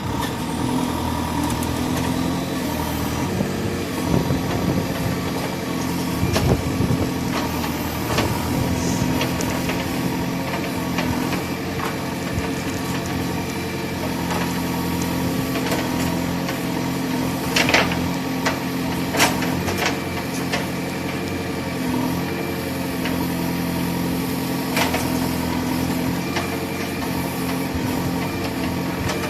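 Diesel engines of heavy road-construction machinery running steadily, with a few sharp knocks; the two loudest come about a second and a half apart, about two-thirds of the way through.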